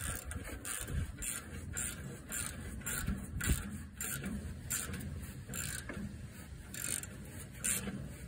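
Socket ratchet clicking as a bolt is turned, in repeated short strokes about two a second.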